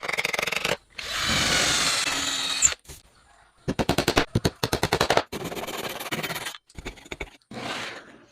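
Woodworking tool sounds in short, abruptly cut bursts: rapid trains of sharp strikes of roughly ten a second alternate with stretches of steady hissing noise.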